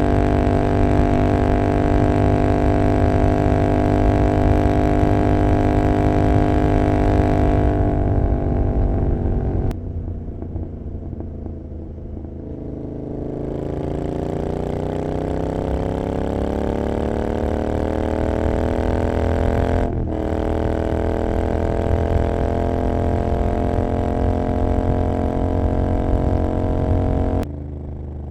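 Royal Enfield Continental GT 650's parallel-twin engine through an Emgo Hooligan exhaust with the dB killer removed, running at a steady pitch at highway speed. About eight seconds in, the throttle eases off and the pitch falls, with a break near ten seconds. It then builds again with rising pitch, breaks briefly around twenty seconds in, and drops suddenly near the end.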